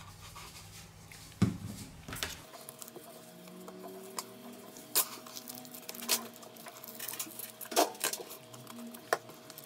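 Scattered light clicks and taps of small repair tools against an opened OnePlus 3T smartphone, while its battery adhesive is worked with isopropyl alcohol. A faint steady hum sits underneath.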